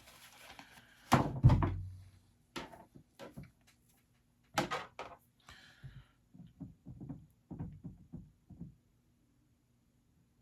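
Hand work on a workbench: a loud thunk about a second in, then a scattered series of small knocks and clicks as tools and parts are picked up and set down.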